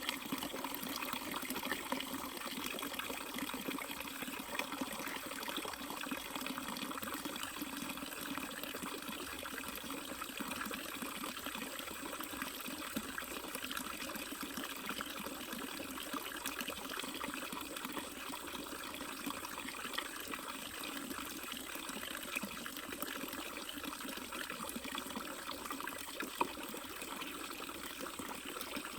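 Running water flowing steadily, an unbroken splashing rush.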